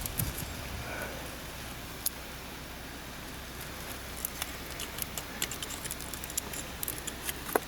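Scattered small, sharp clicks and taps of hands working a plastic electrical connector on the intake air temperature sensor, busiest about four to five seconds in and again near the end.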